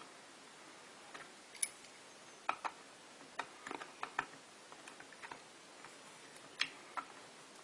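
Light, irregularly spaced clicks and taps, about fifteen of them, from small tools and plastic and metal parts of an OO gauge model locomotive being handled during repair, over a faint steady hiss.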